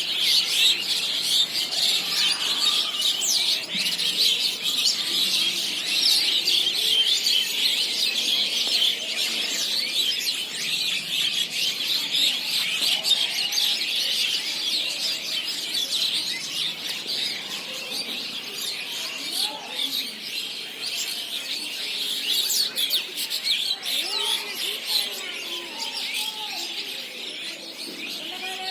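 A large flock of small birds chirping all at once, a dense unbroken chatter of high calls, with some lower calls mixed in during the second half.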